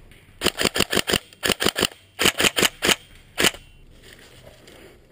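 Tokyo Marui M4 SOPMOD airsoft electric gun firing quick single shots, each a sharp snap: three fast strings of three to five shots, about six a second, then one last shot.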